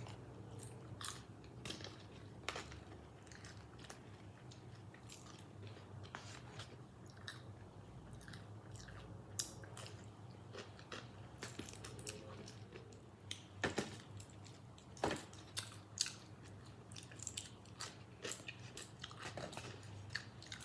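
Close-miked chewing and biting of food, with many small crisp mouth clicks and a few louder sharp snaps.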